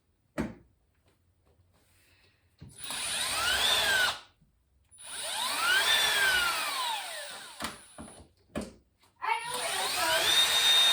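Power drill fitted with a hex bit, run in three bursts that each speed up and slow down, unscrewing the door-hinge fasteners of a refrigerator. A few sharp clicks fall between the bursts.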